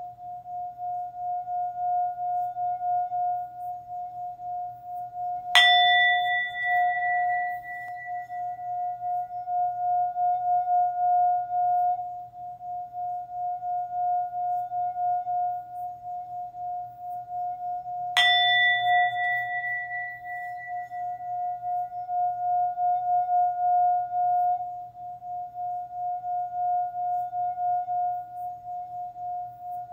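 Singing bowl ringing with a steady, wavering hum that pulses in loudness, struck twice about twelve seconds apart; each strike adds a brighter ring on top that fades over a few seconds.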